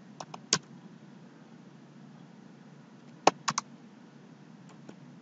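Computer keyboard keystrokes as a number is typed and entered: a few sharp key presses near the start, then a quick group of three about three seconds in.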